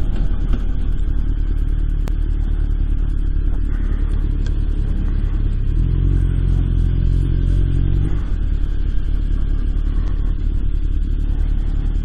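Honda CB1100's air-cooled inline-four engine running at low speed. Its note turns steadier and stronger from about six to eight seconds in.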